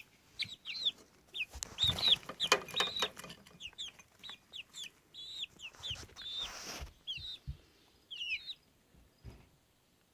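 Baby chickens peeping: many short, high cheeps that fall in pitch, several a second, thinning out towards the end. A few soft knocks come through in the first few seconds.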